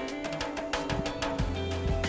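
Background music with a steady beat and held tones; a low bass note comes in about one and a half seconds in.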